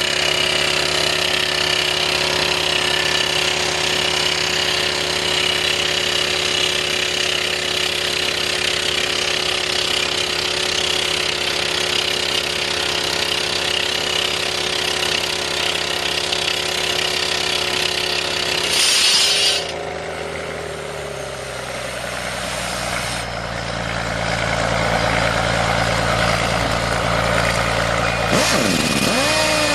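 Engine of a track-mounted drill and air compressor running steadily under a loud hiss. About twenty seconds in, the hiss cuts off and the engine slows to a lower, idling speed. Near the end a tone swoops down and back up.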